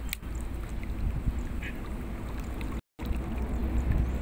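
Steady low rumble of wind on the microphone with water stirring around a wading angler. A short click right at the start, and the sound cuts out completely for a moment about three seconds in.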